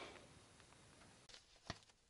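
Near silence: quiet room tone with a few faint clicks and one sharp click near the end.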